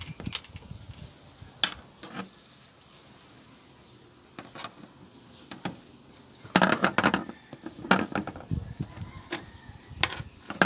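Plastic push-in clips on a Nissan Navara's front grille being pried and popped with a flat screwdriver: scattered sharp clicks, with a busier run of clicks and scraping about six to seven seconds in.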